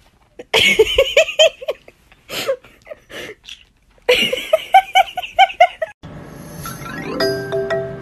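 Two bursts of quick, high-pitched laughter, each a run of short 'ha-ha-ha' syllables. About three quarters of the way through, a light mallet-percussion tune starts.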